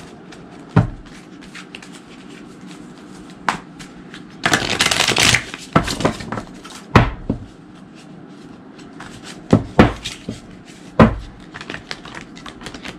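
A deck of oracle cards being shuffled by hand, with a dense run of shuffling about four and a half seconds in and several sharp taps scattered through the rest.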